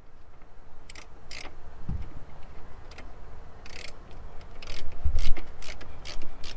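Screwdriver fitting a mounting screw through the Pioneer TS-D12D4 subwoofer's frame into its carpeted enclosure: a run of short, irregularly spaced clicks, with dull thumps about 2 s and 5 s in as the speaker is pressed against the box.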